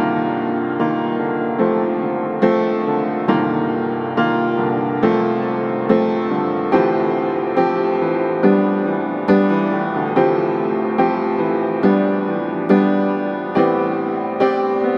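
Background piano music: slow chords struck about once a second, each left to fade.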